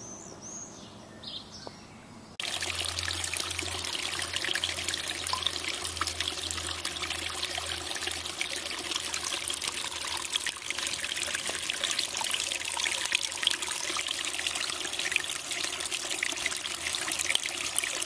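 A small stream of water trickling and splashing over rocks into a shallow pool. It starts abruptly about two seconds in and keeps up a steady patter of tiny drips and splashes. Before it, faint bird chirps.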